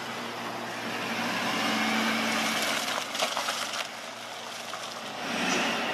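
Motor vehicle driving by on the street, engine and tyre noise swelling and then easing off, with a few sharp clicks about halfway through.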